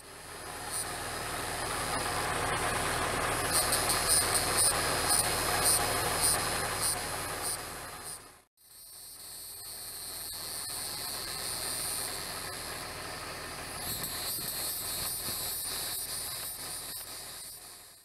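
Insects chirping in quick, high-pitched pulses over steady background noise. The sound cuts out briefly about eight and a half seconds in, then carries on.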